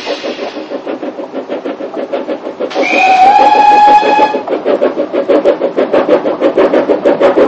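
Narrow-gauge steam tank engine working a train, its exhaust beating in a quick, even chuff. About three seconds in it gives one whistle blast of about a second and a half, the loudest sound.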